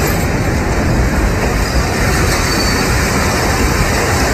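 Sound effect of a train running on rails: a steady rumble and rush of wheels on track.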